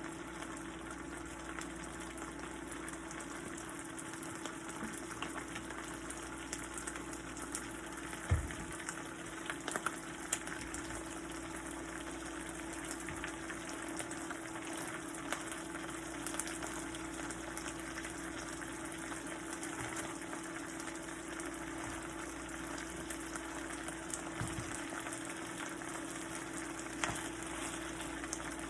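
Food frying on the stove: a steady sizzle with light crackles over a low hum, with a couple of soft knocks.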